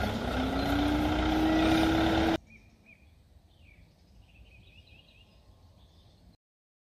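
A motor vehicle engine runs over steady noise, its tone rising and then holding, and cuts off abruptly about two and a half seconds in. Faint bird chirps follow over quiet background, then silence near the end.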